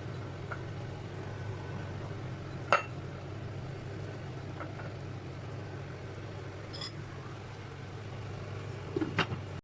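A steady low hum under a pan of tomato sauce, with a few sharp clinks of a cooking utensil against the pan. The loudest clink comes about three seconds in and two more come near the end.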